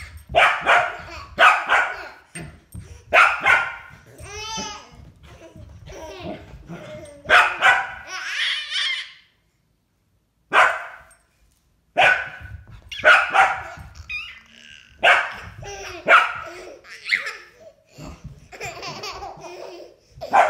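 A Labradoodle barking in quick clusters of short, sharp barks while playing, with babies laughing and squealing in between. The barking stops briefly about ten seconds in, then resumes.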